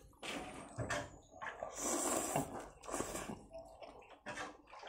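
Slurping and chewing a mouthful of noodles and vegetables, with the longest, loudest slurp about two seconds in.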